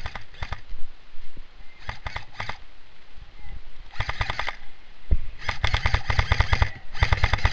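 M4-style airsoft electric rifle firing several short full-auto bursts of rapid clicking shots, with the gearbox cycling under each burst. The bursts come in quick succession, and the last two are the longest.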